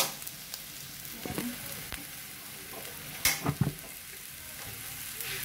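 Scrambled eggs with onion sizzling steadily in a hot metal pan. There is a sharp click right at the start, and a few short scrapes and knocks of a utensil against the pan about a second and a half in and again about three and a half seconds in.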